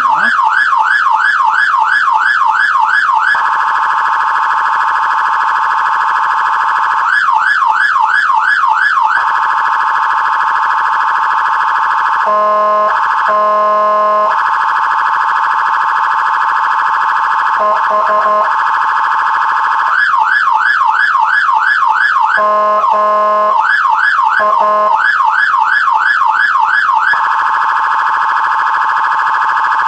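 Whelen Alpha electronic siren running its priority tone. It switches back and forth between a rapid up-and-down sweep, about three or four cycles a second, and a much faster warble. A few short bursts of the lower horn tone cut in near the middle and later on.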